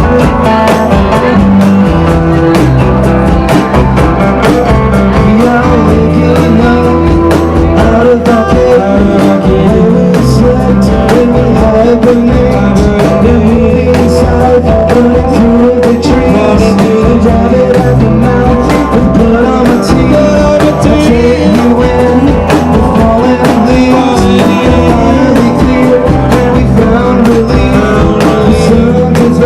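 Live rock band playing a song on guitars, bass and drums, with a singer's voice.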